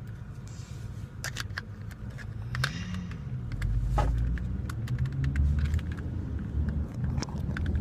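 Scattered light plastic clicks and taps from handling a Rubik's Cube, over a low rumble that grows louder about halfway through.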